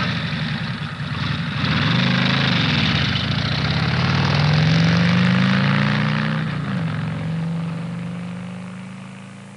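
2005 Chevy Tahoe's V8 engine accelerating, its pitch climbing for several seconds, then easing off and fading away as the truck drives off.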